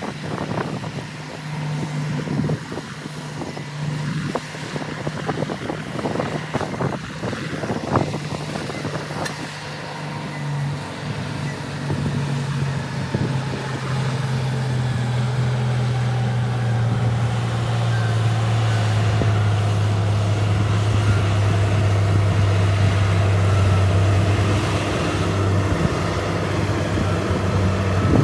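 Diesel engine of heavy earthmoving machinery running, with sharp clanks and knocks over the first ten seconds. About twelve seconds in, the engine note drops lower and grows steadily louder.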